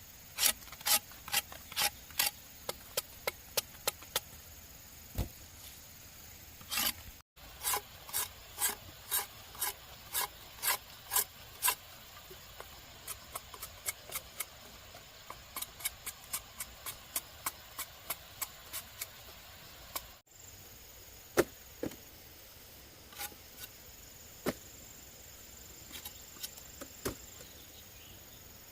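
Repeated rasping strokes of a hand tool against a hard, wood-like material, about two a second, with a few pauses and a slower, sparser run in the second half.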